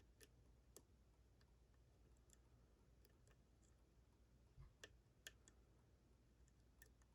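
Faint, scattered clicks of a hook pick lifting and setting the pin tumblers of a lock, about eight over several seconds, over a faint low hum.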